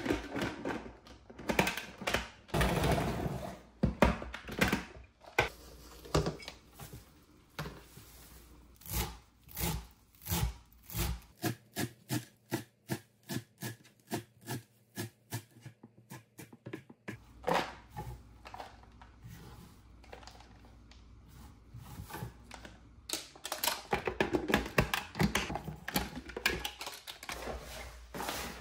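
Chef's knife chopping parsley on a wooden cutting board, a long run of sharp, even knocks at about two strokes a second. It is busier with handling noise and knocks at the start and again near the end.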